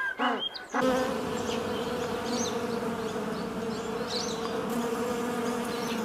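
A few short calls from a penguin, then, from just under a second in, the steady buzzing of a crowd of honeybees at a hive entrance.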